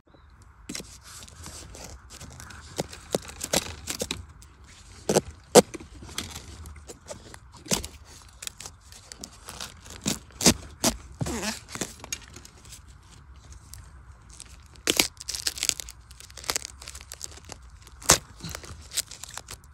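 A bamboo shoot being dug out of soil with a knife and gloved hand: irregular scraping, crunching and tearing of earth and roots, with sharper cuts now and then. The loudest come about five and a half, ten and a half and eighteen seconds in.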